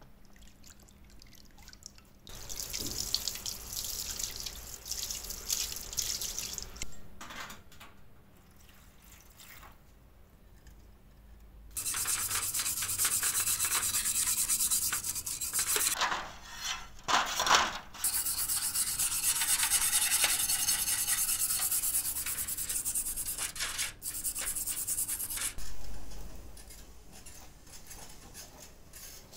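A stiff brush scrubbing the wet, powder-coated rusty steel blade of a garden spade in a metal tray, a steady scrubbing noise in long stretches. It is quieter at first and loudest through the middle, with a couple of short pauses.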